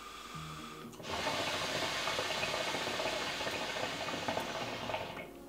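Water bubbling in the base of an Adina Impact hookah as smoke is pulled through the downstem, a dense gurgle lasting about four seconds, starting about a second in and stopping near the end. It comes with a draw test on a normal-length downstem, which is judged an ordinary draw, not too light and not too hard.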